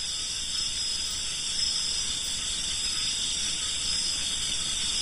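Steady chorus of night insects such as crickets, a continuous high chirring held at several fixed pitches.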